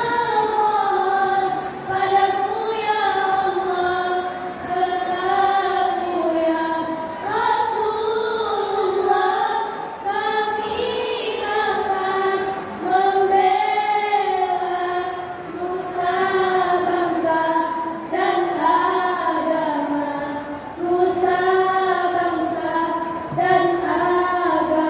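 A group of girls singing one melody together, in phrases that run on with short breaths between them.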